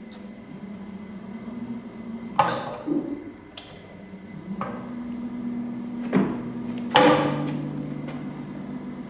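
Coil winding machine's drive humming at slow speed, its tone shifting slightly about five and seven seconds in, with a handful of sharp knocks and clicks from handling at the machine, the loudest about seven seconds in.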